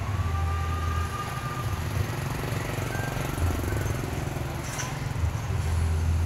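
A low rumble that swells and drops unevenly, with a few faint, clear ringing tones above it in the first two seconds and a single click about five seconds in.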